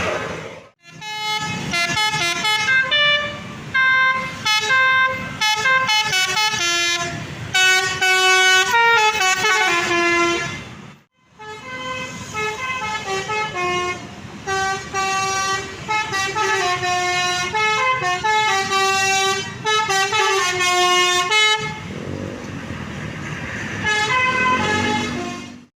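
Tour bus telolet horn, a multi-tone musical air horn, playing quick tunes of stepped notes in two long runs with a brief break between them. The horn stops about twenty-one seconds in, leaving a noisy hum of engines and traffic with a few short horn notes near the end.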